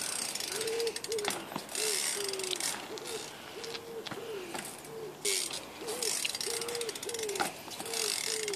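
BMX rear hub's loud freewheel ticking as the bike coasts, with a short squeak repeating about twice a second.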